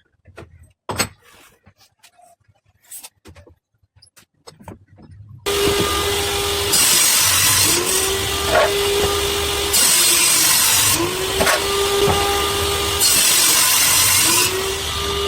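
A few scattered knocks and clicks, then about five seconds in an electric woodworking power tool starts running loudly. Its motor pitch dips and recovers about every three and a half seconds as it bites into the wood.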